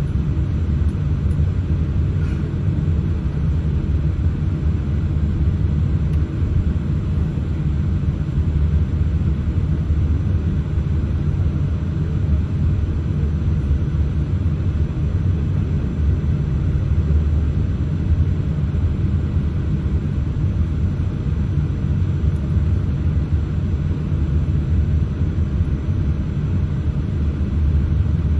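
Cabin noise of a Boeing 787-8 airliner taxiing: a steady low rumble from the engines at taxi power and the rolling aircraft, heard from inside the passenger cabin.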